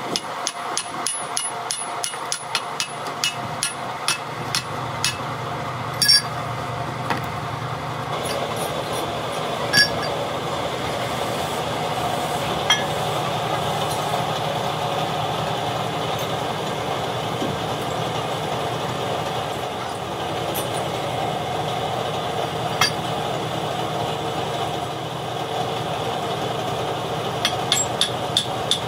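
Hand hammer striking steel hydraulic-jack parts: a quick run of light taps for about the first five seconds, then occasional single blows, and a short cluster of taps near the end. A steady hum runs underneath.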